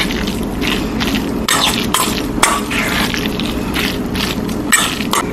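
A metal spoon stirring and scraping a tuna and mayonnaise mixture against the sides of a metal mixing bowl, in a string of short irregular strokes, over a steady low hum.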